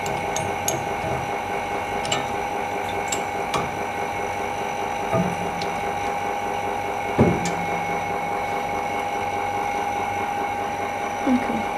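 Steady electric machine hum with scattered light clicks and a few short low sounds, the loudest about seven seconds in.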